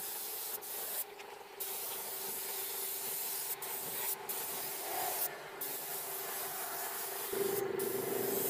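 Gravity-feed air spray gun hissing as it sprays paint, cut off in several short breaks when the trigger is let go. A steady hum runs underneath and grows louder about seven seconds in.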